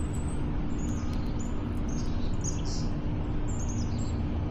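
Small birds chirping in short, high-pitched calls over a steady low rumble with a faint hum.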